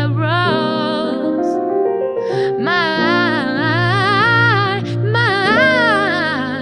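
Singing with long held, wavering notes over a soft piano and keyboard accompaniment.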